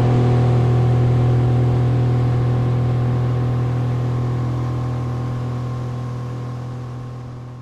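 Mercury outboard motor running steadily at speed, a constant low hum over the rush of the boat's wake. The sound fades out gradually toward the end.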